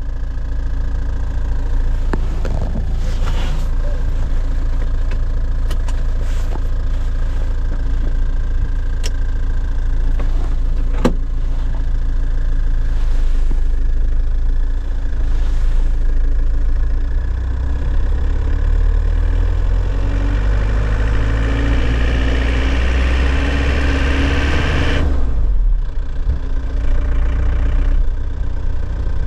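Nissan Cabstar truck engine running at idle, with a few sharp clicks in the first half. A little past halfway the engine note rises for several seconds, then drops suddenly a few seconds before the end and settles back to a steady run.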